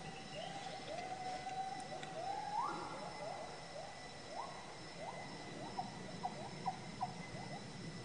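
Wild animal calls: a series of short rising whistled notes, several overlapping. There is one long held note in the first couple of seconds and a few sharper short notes about three-quarters of the way in, over a faint steady high hum.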